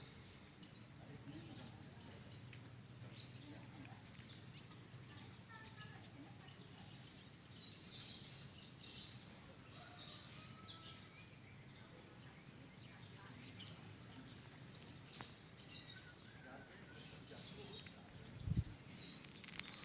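Small birds chirping and twittering in short, high calls scattered throughout, faint over a steady low hum, with one brief low thump near the end.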